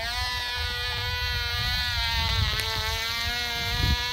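Cox Pee-wee .020 glow engine on a free-flight model plane running under power in flight: a steady, high-pitched buzz whose pitch wavers slightly as the plane turns.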